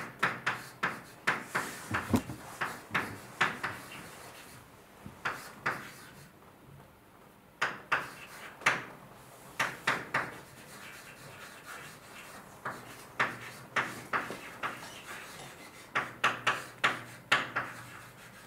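Writing on a lecture board: runs of short taps and scraping strokes, with pauses of a second or two between the runs.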